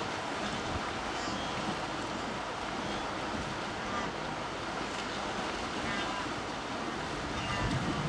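Steady rushing noise of wind on the microphone mixed with river water, with no sharp events.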